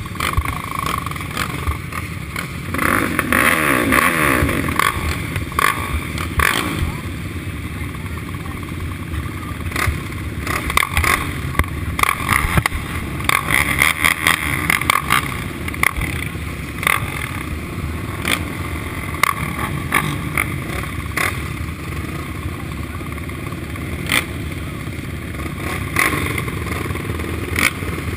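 Several racing quad (ATV) engines idling together at a starting line, with throttle blips. One engine revs up in rising sweeps about three to five seconds in.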